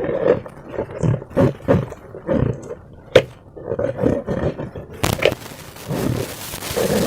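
Slime and rubber balloons being squeezed and worked by hand: irregular squelching and rubbery groaning squeaks, with a sharp snap about three seconds in.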